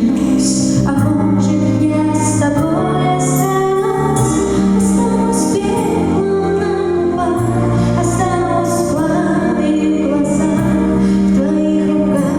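A song with a woman singing over a band, with sustained low notes and chords and a steady beat of high hits about twice a second.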